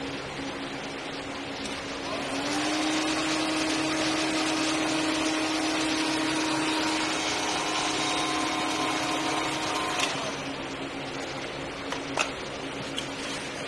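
A small electric motor running with a steady hum. About two seconds in it speeds up slightly and gets louder, then drops back near the ten-second mark.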